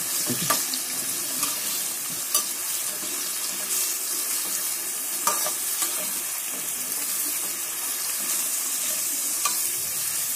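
Chopped onions frying in hot oil in a kadai with a steady sizzle, stirred with a perforated metal spatula that clinks briefly against the pan a few times.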